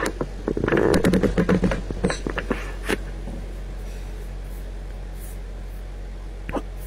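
A quick run of clicks, knocks and rustling in the first three seconds, like things being handled in a small room, over a steady low electrical hum; a couple more clicks come near the end.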